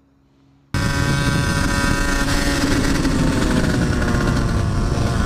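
Dirt bike engine running at a fairly steady speed while riding along a paved road. It cuts in suddenly about three-quarters of a second in, after near silence.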